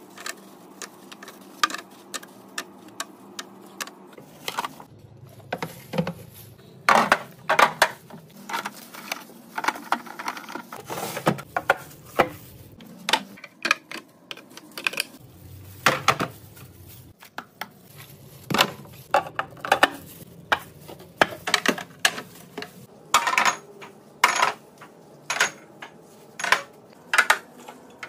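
Containers and bottles clinking and knocking as they are handled and set down in a fridge, in quick irregular taps with short pauses.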